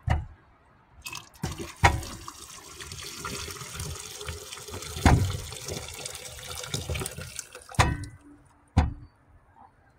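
Hot water poured from an electric kettle into a large plastic beaker of solution: a steady splashing stream lasting several seconds. A few sharp knocks come before, during and after the pour.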